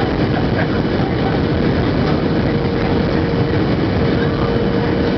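Steady cabin roar of a Boeing 737-700 in flight, heard through the window seat: engine and airflow noise from its CFM56 turbofans, with a steady hum underneath.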